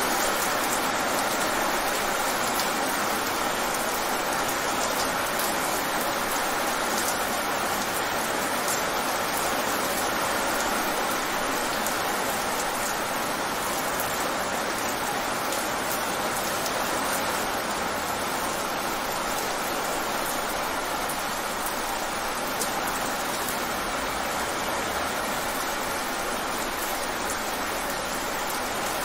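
Rain falling fast on wet pavement: a steady, dense hiss of drops splashing on the puddled surface.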